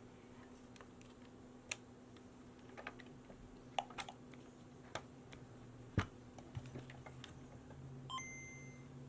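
Scattered light clicks and taps of small plastic parts and tools being handled, the loudest about six seconds in. Near the end, a short two-note electronic chime with a high held tone, like a Nintendo Game Boy powering on.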